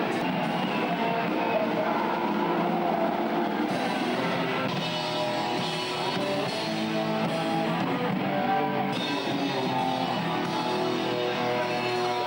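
Rock band playing live, guitar to the fore over a drum kit, with sustained notes.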